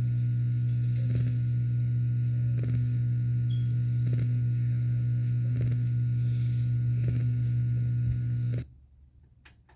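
Loud, steady electrical hum with faint ticks about every second and a half, cutting off suddenly near the end.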